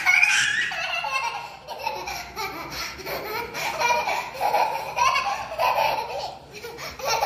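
Young children laughing in repeated high-pitched peals, a toddler giggling among them.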